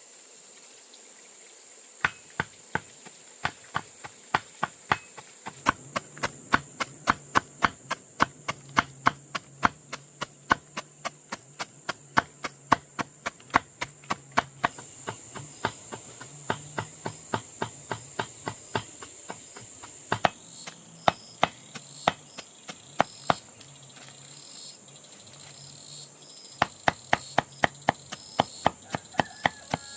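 Rapid sharp knocks, about three a second, pausing briefly twice, over a steady high-pitched insect drone.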